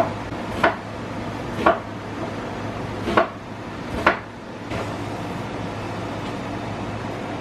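Kitchen clatter: about six sharp knocks of cookware and utensils over the first five seconds, over a steady low hum.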